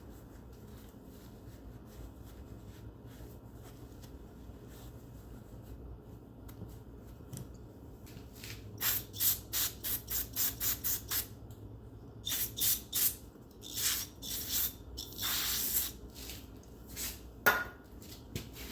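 Quick scrubbing strokes on a transaxle shaft, a few a second in short bouts starting about halfway through, as the shaft is cleaned for a new seal, with a steady hiss of about a second and a single sharp click near the end.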